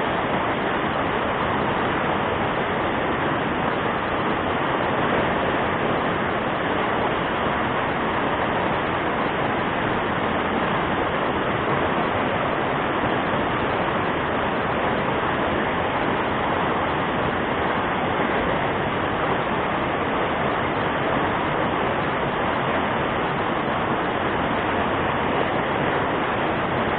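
Fast-flowing river current, a steady rushing noise that holds unchanged throughout.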